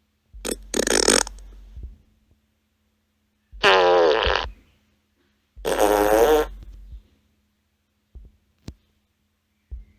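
Three fart sound effects played from a smartphone soundboard app, one after another about two seconds apart, each lasting about a second with a buzzing, pitched tone. A few faint clicks follow near the end.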